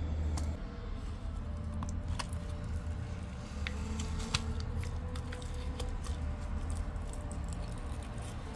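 Faint handling noises, scattered small clicks and scrapes, as a lithium-polymer pouch cell is pried loose from a plastic powerbank case, its glue softened with alcohol. A steady low hum runs underneath.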